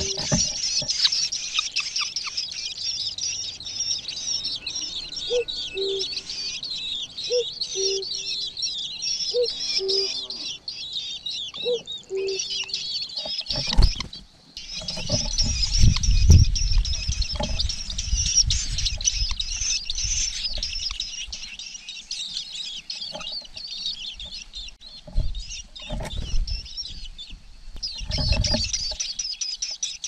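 Nestlings begging in the nest: a dense, continuous high-pitched chirping, with a brief break about halfway. In the second half, low rustles and thumps come in bouts as the parent bird reaches the nest.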